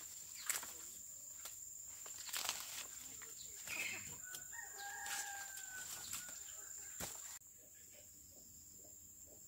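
A rooster crows once about halfway through. Around it are rustling leaves and the snaps and knocks of taro plants being pulled and cut by hand. The rustling stops abruptly near the end.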